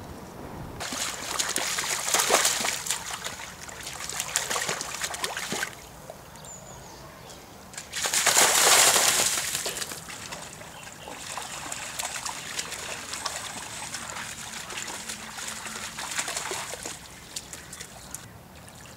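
Lion cubs splashing as they run and wade through shallow flood water, in repeated bursts; the loudest splash comes about eight seconds in.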